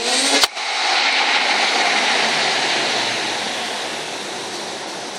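Mazda RX-7 FC's rotary engine revved in place: one sharp backfire bang about half a second in, then a loud rushing exhaust note whose pitch slowly falls as the revs drop back over the next few seconds.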